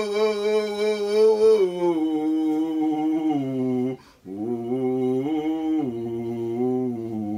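A man's voice singing a slow wordless devotional melody in long held notes, stepping up and down between pitches, with a short breath pause about four seconds in.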